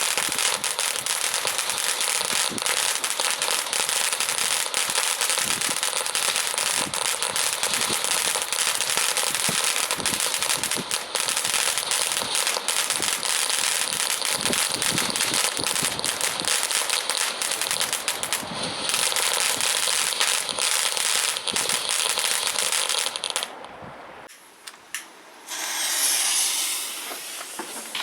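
Consumer firework fountain burning, giving a dense, steady crackle of many small pops over a hiss. It dies out about 24 seconds in, and near the end a new hissing spray starts up.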